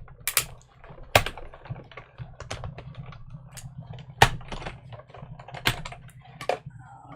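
Small hand-handling clicks and taps of tape, paper and a metal cutting die on a craft table, irregular, with a few louder sharp taps about a second in, just past four seconds and near six seconds.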